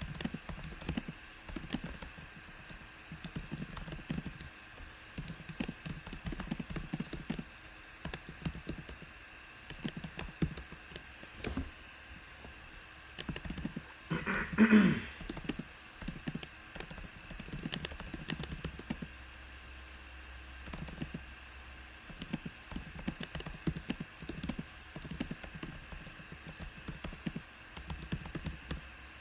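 Typing on a computer keyboard: clusters of key clicks coming and going, with one brief louder sound about halfway through.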